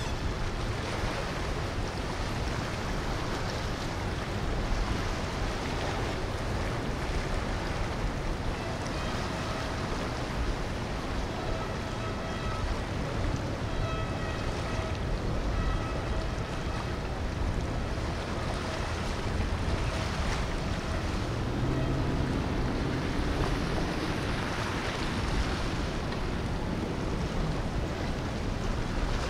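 Steady wind rushing on the microphone over the wash of water and motorboat engines. A faint pitched tone sounds in short beeps about a second apart midway through.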